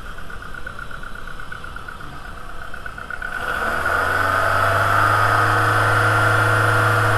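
VW 2.0L ABA inline-four engine running, rising to a higher, louder speed about halfway through and held there steadily. No squealing: the new timing belt and tensioner have cured the noisy old tensioner.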